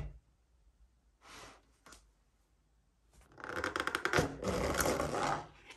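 Thin plastic lid being pulled off a round plastic takeout tub: a brief rustle and a click, then about two seconds of crinkling, crackling plastic.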